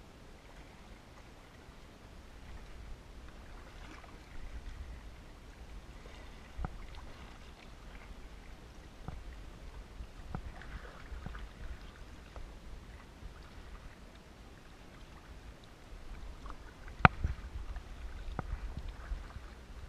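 Kayak paddle strokes through shallow reeds: the blade dipping and splashing, water trickling off it, and reed stems brushing the boat. A few sharp knocks come through, the loudest about 17 seconds in.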